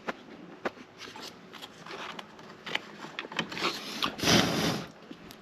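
Hands working the wiring in an open electrical switch box: scattered small clicks and ticks of wires and handling, with one louder rustling scrape about four seconds in.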